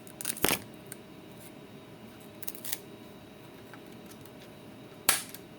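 Sharp plastic clicks and snaps from a smoke alarm's case being handled and opened. There are two loud clicks within the first second, a softer pair about two and a half seconds in, and one loud click near the end.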